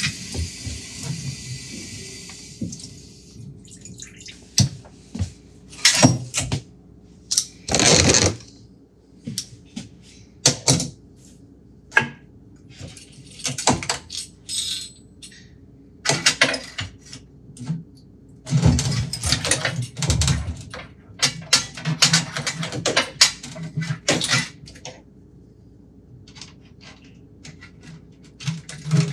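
Water running from the tap into a stainless steel sink stops about three seconds in. Then come irregular metallic clinks and knocks as the pull-down faucet, its coiled spring hose and the tools are handled on the sink and granite counter.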